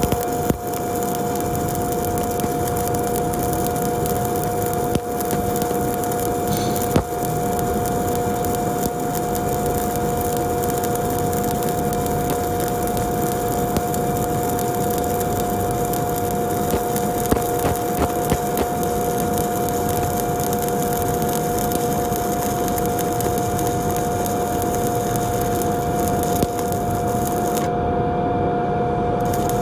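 Shielded metal arc (stick) welding with a 7018 electrode: the arc crackles steadily with small pops over a steady two-tone hum, during a horizontal cap pass. Near the end the arc breaks off and the hiss stops.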